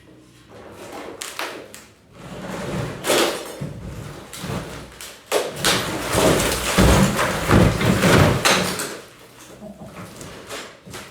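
Demolition of an interior wall: knocks and scraping as it is worked loose, then a long, loud crash and rumble of the wall and debris coming down from about five to nine seconds in.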